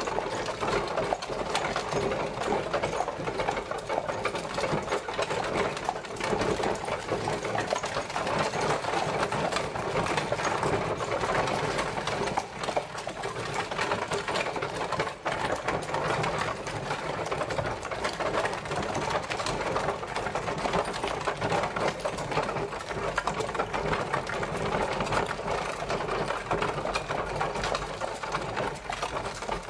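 Horse-drawn carriage travelling: a dense, steady rattling clatter of the rolling carriage that keeps up at an even level throughout.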